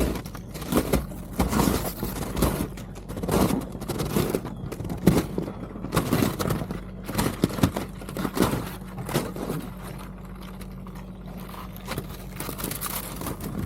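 Kubota tractor engine running steadily under irregular crunching and scraping of ice, the crunches coming thick and fast and then thinning out after about nine seconds.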